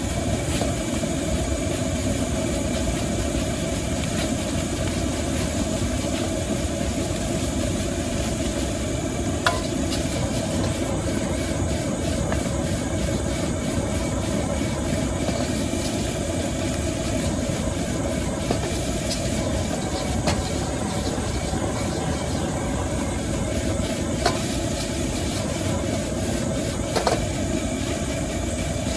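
Steady roar of a high-pressure gas wok burner at full flame, with a few sharp metal clinks of the spatula against the wok.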